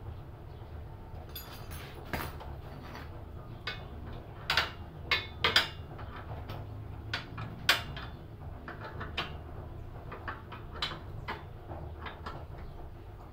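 Irregular metallic clinks and knocks of a wrench working the engine-mount bolts on a tofu grinder's steel frame, tightening them to set the V-belt tension. The sharpest clanks come about four and a half to eight seconds in.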